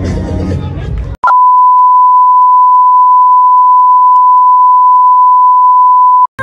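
Music cuts off about a second in and is replaced by a loud, single steady test-tone beep, the reference tone that goes with television colour bars, held for about five seconds before stopping abruptly.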